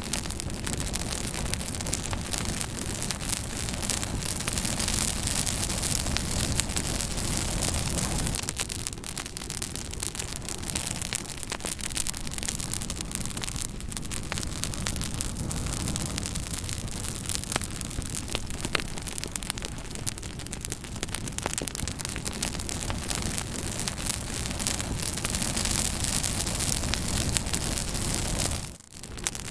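Fire crackling steadily: a constant hiss scattered with many sharp pops. The sound dips out for a split second just before the end.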